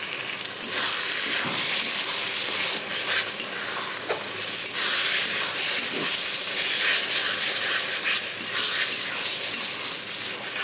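Chopped tomatoes, onions and ginger-garlic paste sizzling in hot oil in a metal kadhai, stirred and scraped with a metal spatula. The sizzle grows louder about a second in as the mixture is stirred.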